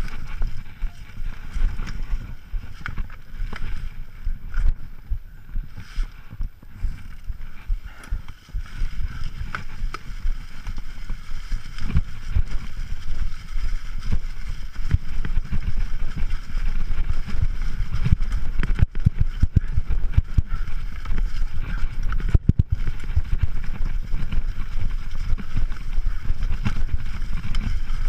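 Mountain bike riding over a rough, leaf-covered dirt trail. A constant low rumble is broken by frequent sharp knocks and rattles as the bike goes over roots and rocks.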